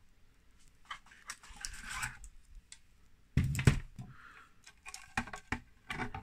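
Hands handling the 3D-printed plastic body and battery wiring of an RC loader: scattered light clicks and knocks, the loudest a thud about three and a half seconds in. Near the end a few clicks as the plastic engine cover is picked up to be fitted back on.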